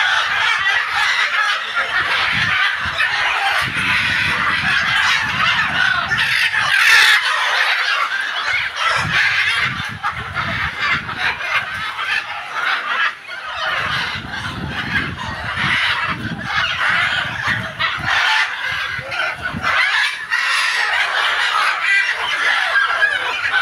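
A large flock of macaws, mostly green-winged macaws, squawking over one another in a continuous chorus of loud, harsh calls.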